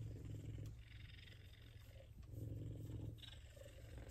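An F2 Savannah cat purring steadily, the low purr swelling and fading with its breaths.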